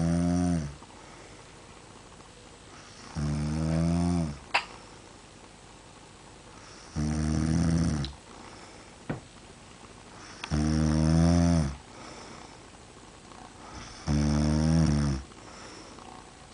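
A sleeper snoring loudly and regularly: a rough, pitched snore about every three and a half seconds, each about a second long and dropping in pitch as it ends. A couple of short sharp clicks fall between snores.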